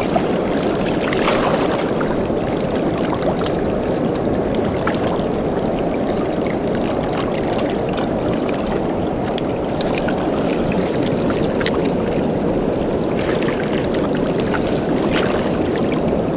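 Steady rushing roar of water pouring through the dam's spillway into the tailwaters, with a few faint ticks.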